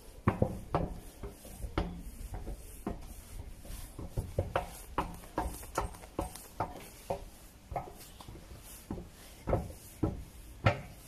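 Footsteps on the metal treads of an escalator: irregular knocks and clicks, about two a second, over a low rumble.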